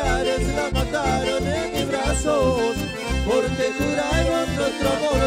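Band music in a Latin American dance style: a wavering lead melody over a steady, pulsing bass beat.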